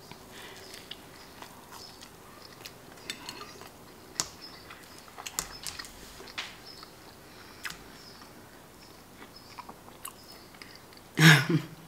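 A person biting into and chewing a toasted sandwich: faint scattered crunches and mouth clicks. A short voiced sound breaks in near the end.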